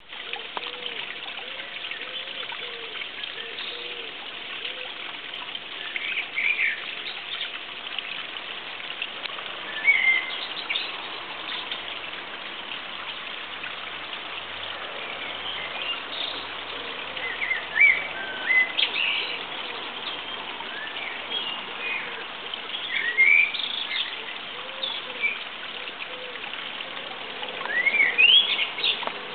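Wild birds chirping and calling in short, scattered bursts over a steady outdoor background hiss.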